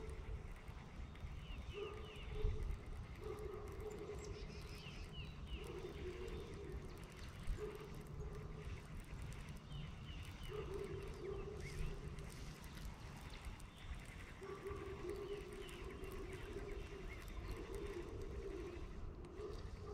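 Lakeshore wildlife: low calls repeating in stretches of about a second, again and again, with short high chirps of small birds over a low rumble. Two soft knocks stand out, one about two seconds in and one about seven seconds in.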